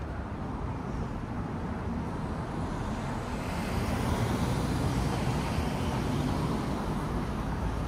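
Street traffic: cars running by in a steady wash of road noise, growing a little louder about halfway through.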